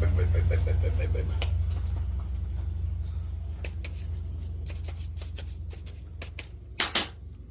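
A low engine hum fading away, with scattered light clicks and knocks of metal parts and tools being handled, and a sharp double clack near the end.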